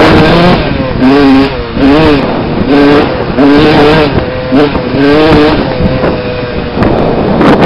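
Dirt bike engine revving up and falling back again and again, about once a second, as the rider works the throttle at speed over a loud rushing noise.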